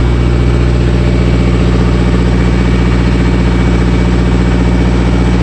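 Diesel engine idling steadily: a loud, even low drone that holds the same speed throughout.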